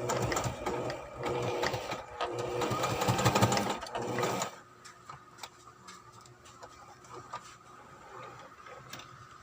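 Brother XL-2600i electric sewing machine running and stitching, with a fast rapid clatter, then stopping about four and a half seconds in; only faint scattered clicks follow.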